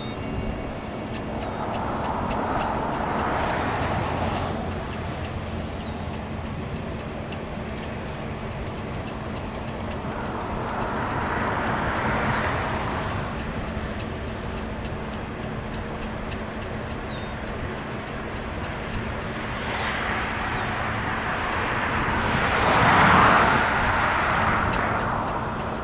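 Vehicles passing by three times, each swelling and fading over a few seconds, the last one loudest, over a steady background hum.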